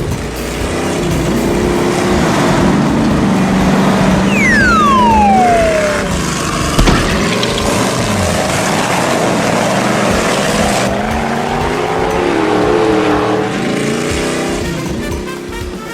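Cartoon toy-vehicle sound effects: engine and tyre noise, with a long falling whistle-like tone about four seconds in and a sharp click near seven seconds.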